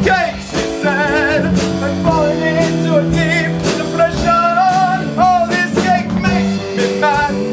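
Live musical-theatre number: a group of voices singing with instrumental accompaniment and a steady beat.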